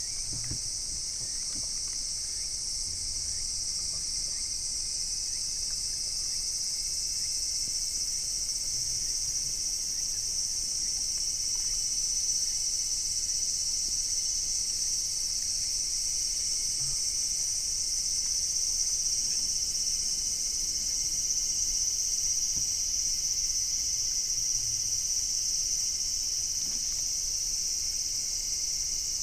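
Steady high-pitched chorus of insects shrilling without a break, a little louder from about halfway through, with a few faint low knocks.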